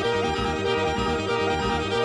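Music with a steady, evenly repeating bass beat under held melodic tones.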